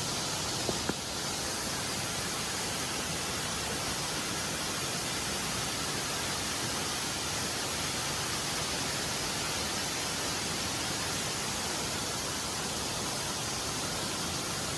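Steady, even noise of a waterfall's falling water, with a brief tap just under a second in.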